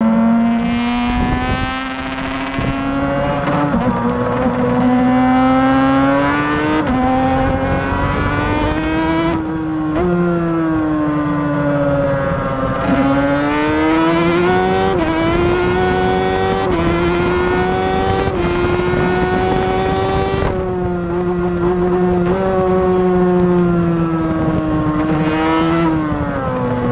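Suter MMX 500 two-stroke V4 race engine heard from on board, climbing in pitch under full throttle and dropping sharply at each quick upshift. The engine shuts off the throttle twice, about 9 and 20 seconds in, and the pitch falls through a corner before it pulls again.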